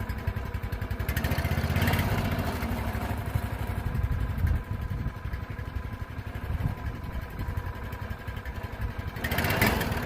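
Subaru small engine on a sawmill running steadily just after being pull-started, with its choke cracked a little; it swells louder for a moment a second or two in and again near the end. It needs that bit of choke to keep running, which the owner takes to mean the spark plug might be at fault.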